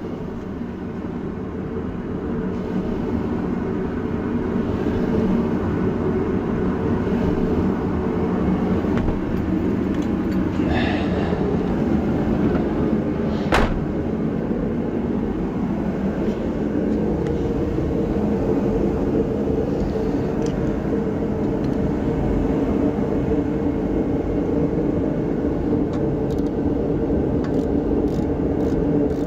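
A steady mechanical drone, a machine running with a low multi-pitched hum, holds at an even level throughout. A single sharp click comes about halfway through, and a few light ticks come near the end.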